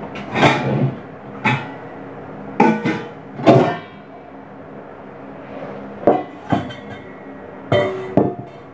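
Stainless steel kitchenware clanking as it is taken from the counter and shelf: about eight separate knocks, several with a short metallic ring, over a steady low hum.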